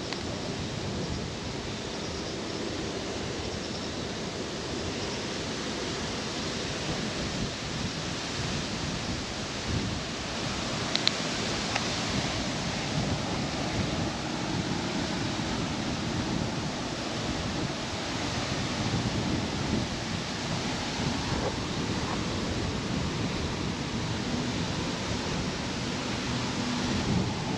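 Wind buffeting the camera microphone: a steady rumbling noise, with a short click about 11 seconds in.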